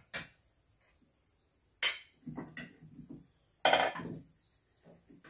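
Metal spoon knocking and scraping against cooking pots and a plate while food is dished out: three sharp metallic clinks, the loudest about two seconds in, with quieter clatter between them.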